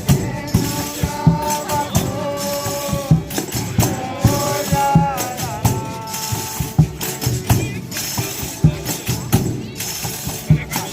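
Folia de Reis folk music: tambourines jingling and drum strikes keeping a steady beat under a held, stepping melody.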